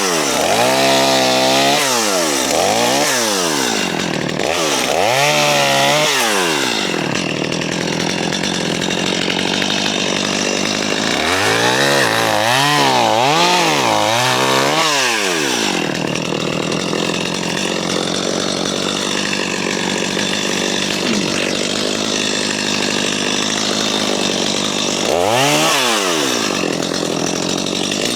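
JCB 55Z excavator's diesel engine working under load, its pitch swinging up and down in quick swells about once a second, then running steadier for a stretch before swinging again near the end.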